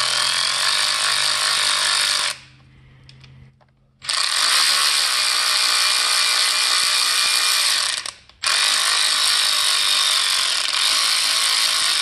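Snap-on power ratchet spinning out a 10 mm timing-chain tensioner bolt on a Ford 4.6 4V modular V8. It runs in three even bursts: the first stops about two seconds in, then it runs twice more for about four seconds each, with short pauses between.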